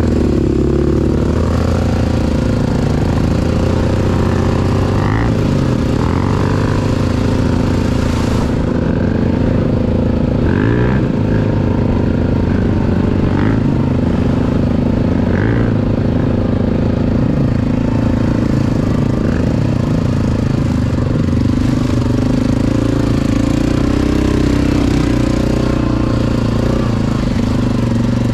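ATV engine running steadily under way, its note wavering up and down a little with the throttle.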